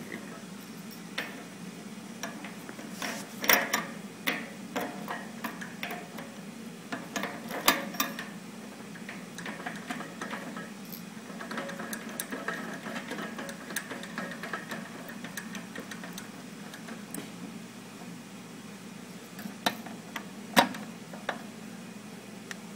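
Irregular metal clicks and knocks from the still door of a Union dry cleaning machine being worked by hand, with a few louder clanks early on and near the end, over a steady low hum.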